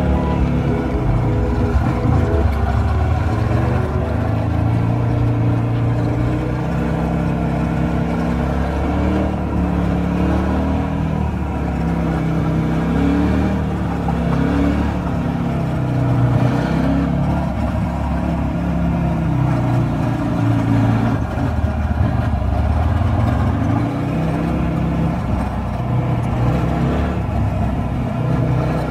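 The 250 cc single-cylinder engine of a Zongshen RX3 (KTNS RS3) adventure motorcycle running under way, its revs rising and falling with the throttle.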